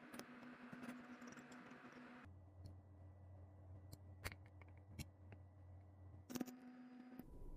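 Near silence: faint room hum with a few soft, scattered clicks.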